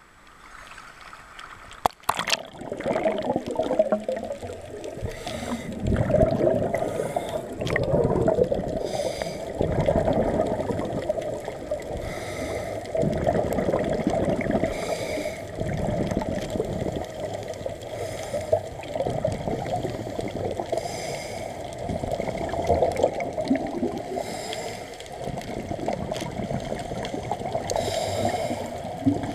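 Scuba breathing heard underwater: exhaled bubbles gurgle and rush from a regulator in pulses every two to three seconds, over a steady underwater drone. It starts faint, with a sharp knock about two seconds in.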